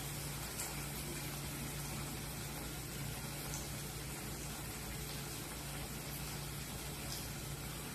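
Hot sunflower oil bubbling and sizzling steadily in a pan as a parippu vada (lentil fritter) fries, with a few faint pops and a low steady hum underneath.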